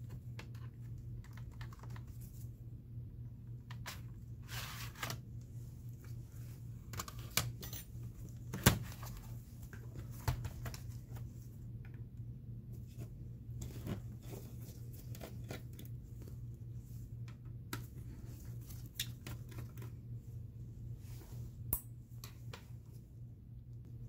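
Hand tools working along the seam of a laptop's plastic case: scattered light clicks and scrapes as the case is pried apart, with a sharp snap about 9 s in. A steady low hum runs underneath.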